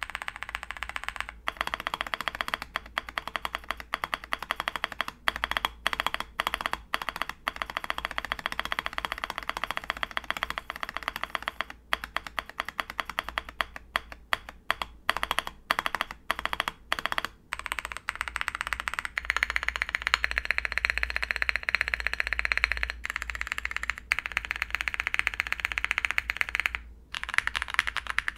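Fast, continuous typing on a mechanical keyboard with lubed tactile Holy Boba switches, MT3 PBT keycaps and a polycarbonate plate. Dense keystroke clicks, with a few brief pauses partway through and near the end.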